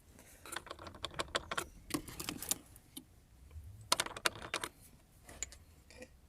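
Loose plastic air-conditioner control dial of a Daihatsu Move Latte rattling and clicking as it is wiggled by hand, in two irregular runs of quick clicks: the dial has play in its mounting.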